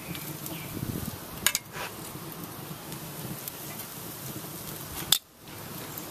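Stuffed jalapeño poppers sizzling on the hot grate of a kamado grill over a live fire: a steady hiss, broken by a few sharp clicks about a second and a half in and again near five seconds, after which the sound briefly drops away.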